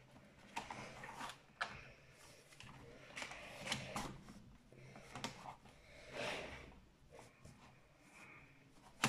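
A card scraping along the seam of an ASUS X540L laptop's case and prying its snap clips loose: faint scrapes and a scattering of small clicks.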